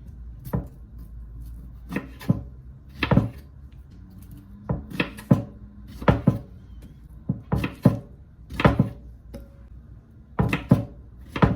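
Knife cutting a banana into pieces on a cutting board: about fifteen sharp knocks of the blade meeting the board, at an uneven pace of one or two a second.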